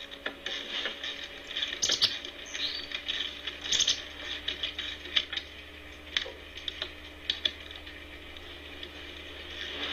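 Irregular light clicks and rattles of hands working on a wooden snowman cutout, fitting its outfit, over a steady low hum.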